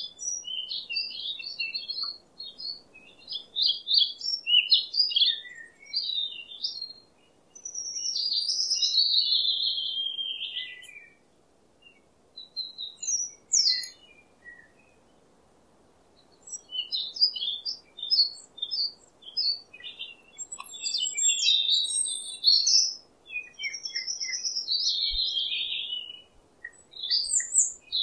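Songbirds singing: phrases of quick, high chirps and whistled notes, with two short pauses near the middle.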